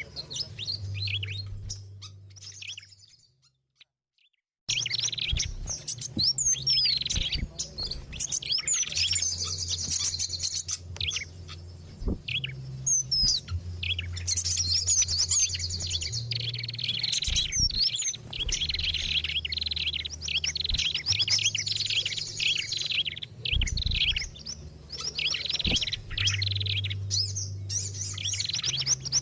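Bird-lure recording: dense, overlapping chirps, trills and calls of several small songbirds mixed together as one busy chorus. It fades out about three seconds in and starts again abruptly near five seconds, with a low hum coming and going underneath.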